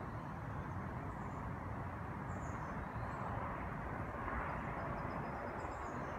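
Steady outdoor background noise, a low even rush like distant traffic and air, with a few faint high bird chirps scattered through it.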